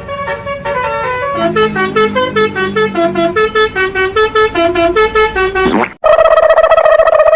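Telolet basuri bus horn playing a quick tune of short stepped notes for about six seconds, then a loud, steady single horn blast after a brief break near the end.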